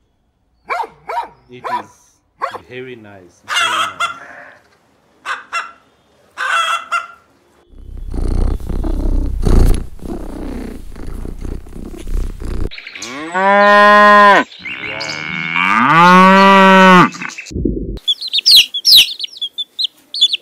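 A sequence of animal sounds. First a dog barks in short bursts, then comes a low rumble. Then two long drawn-out calls dip and rise in pitch, and near the end ducklings peep in a quick high flurry.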